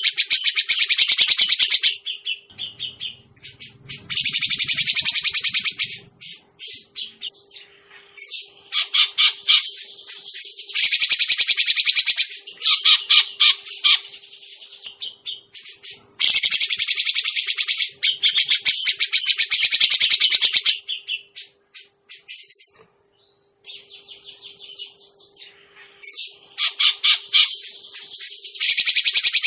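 Grey-cheeked bulbul (cucak jenggot) calling: loud bouts of rapid, harsh chattering a few seconds long, broken by short pauses, from a lure recording. A faint steady hum runs underneath.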